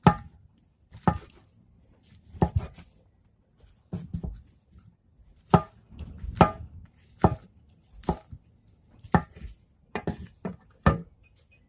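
Kitchen knife chopping mushrooms on a cutting board: a dozen or so single sharp knocks at an uneven pace, roughly one a second.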